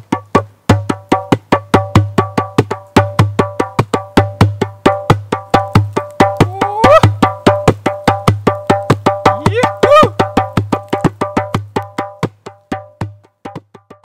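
Djembe played fast with bare hands: a steady rhythm of about six or seven strokes a second, deep bass thuds mixed with ringing higher tones. Two short rising pitched cries come about seven and ten seconds in, and the playing stops just before the end.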